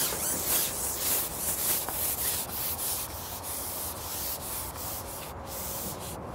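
Long carbon fishing pole being shipped out hand over hand, the pole sliding and rubbing with a rough, repeated scraping hiss that grows fainter after about three seconds.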